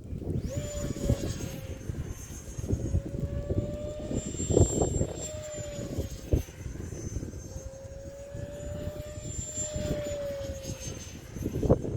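Electric ducted fan of an E-flite Habu STS RC jet on 6S whining in flight, its pitch wavering up and down as the throttle and distance change. Strong wind buffets the microphone underneath with low, gusty rumbling and a few sharp knocks.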